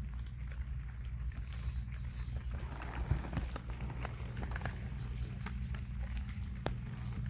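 Rabbits eating: irregular sharp crunching clicks of chewing over a steady low rumble, with a few brief faint high chirps.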